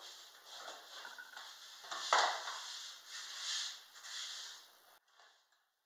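Hands rubbing and pressing a sheet of brown paper flat onto a plywood board: the paper rustles and swishes in strokes, with a sharper knock about two seconds in. The sound stops abruptly near the end.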